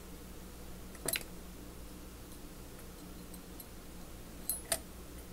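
Small metal ratchet parts clicking lightly as they are handled during disassembly: a click about a second in and two more near the end, over a faint steady low hum.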